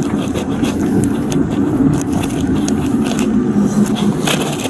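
Steady rumble of a car's engine and tyres, heard from inside the moving vehicle, with scattered small clicks and rattles.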